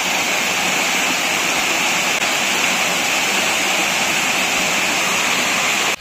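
Waterfall's rushing water, a steady, unbroken rush.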